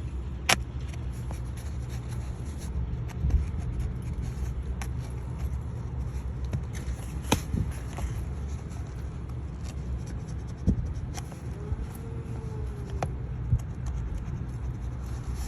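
Hands working a leatherette seat cover around a headrest-post opening, with light scraping and rubbing of the material and a few scattered sharp clicks against the seat's plastic trim, over a steady low rumble.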